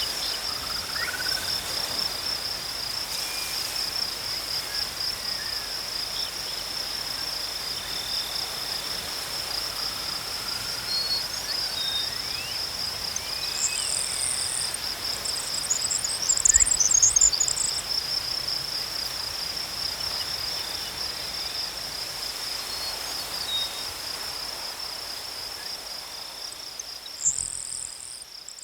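Insects in grass stridulating: a steady, fast-pulsing high trill. Short bursts of high bird chirping come about halfway through and again near the end, with faint, thin bird calls further off, and a brief low rumble just after the middle.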